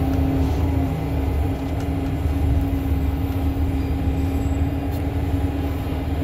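Bus engine and drivetrain running as the bus drives along, heard from inside the cabin: a steady low drone with a constant whine over it.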